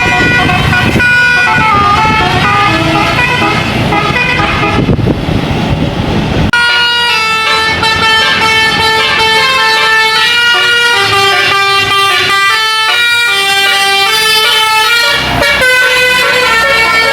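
Bus 'telolet' musical horn playing a quick melody of stepped notes. For the first six seconds or so it sounds over the low rumble of the bus engine, then the rumble drops away suddenly and the horn tune carries on clear.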